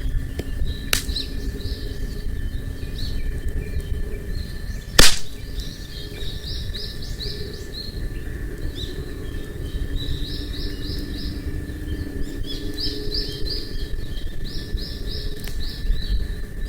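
A small songbird singing repeated phrases of short, quick high notes over the scattered crackle of a wood campfire, with one loud sharp pop about five seconds in.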